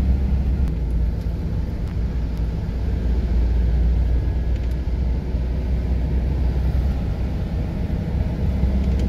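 A car driving on a road: a steady low rumble of engine and tyre noise.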